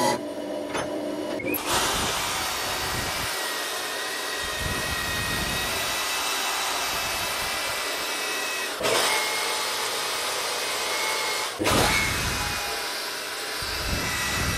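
Power sanding a hollow wooden vessel spinning on a lathe: a drill-driven sanding disc is held against the turning wood, making a steady abrasive hiss over the drill's whine. It starts about a second and a half in and breaks off abruptly twice.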